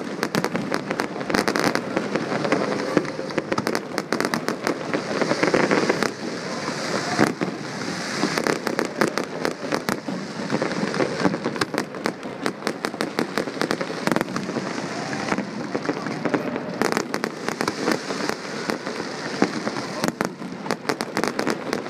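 Fireworks display going off: a dense, continuous run of sharp crackles and pops.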